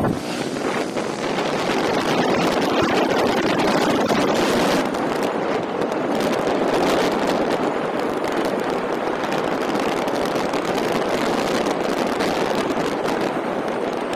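Steady wind rush and road noise from a motorcycle moving along a highway, the airflow buffeting the handlebar-mounted microphone.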